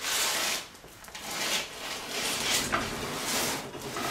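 A person straining on an adjustable wrench to bend a freshly welded steel joint: short rasping noises about once a second, with no clang or snap, because the weld holds.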